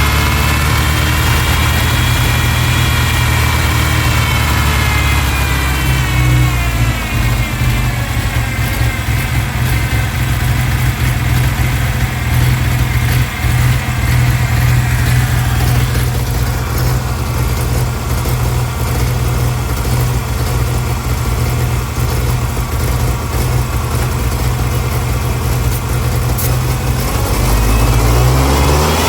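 1999 Ford Ranger's 2.5-litre four-cylinder engine running, with a high whistle over it that rises and falls in the first few seconds; the revs climb near the end. The engine has a massive vacuum leak.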